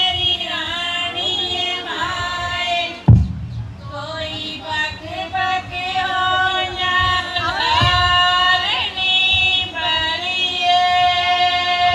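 Women singing a Punjabi folk song, a lead voice through a microphone holding long, gliding notes. A loud low thump about three seconds in and a weaker one near eight seconds.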